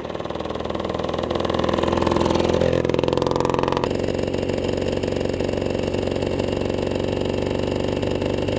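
The 175cc two-stroke engine of a 1952 Hoffmann MR175 motorcycle running as it rides along the road. It grows louder as the bike approaches, and its pitch drops as it passes. After an abrupt change about four seconds in, it runs steadily at riding speed.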